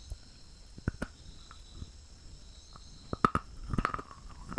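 Teeth biting into a brittle, chalk-like stick: a few faint crackles, then sharp cracks about three seconds in as a piece snaps off, followed by a short run of crunching.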